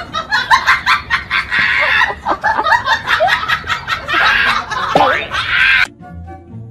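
People laughing loudly in rapid bursts with high-pitched peaks. The laughter cuts off suddenly about six seconds in and gives way to light background music.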